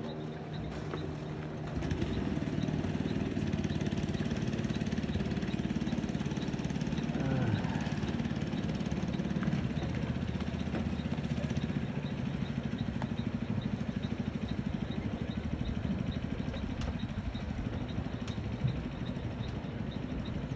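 An engine running steadily with a fast, even chugging beat, getting louder about two seconds in.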